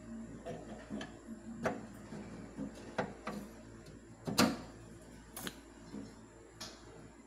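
Gas stove burner being fitted into a stainless steel stove top: a series of sharp metal knocks and clicks as it is moved and seated, the loudest about four and a half seconds in.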